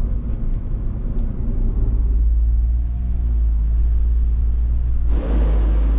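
Car driving on a road, heard from inside the cabin: a steady low rumble of road and engine noise, joined about five seconds in by a louder rushing hiss.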